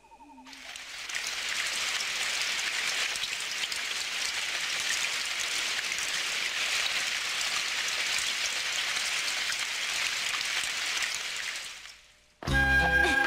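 Steady rain falling, a cartoon rain sound effect. It fades in at the start and stops abruptly near the end, where music begins.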